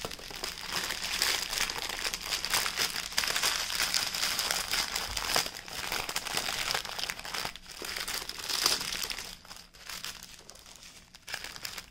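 Plastic packaging being handled, crinkling and rustling with many small irregular crackles. It goes on busily for most of the time and turns fainter and sparser about nine seconds in.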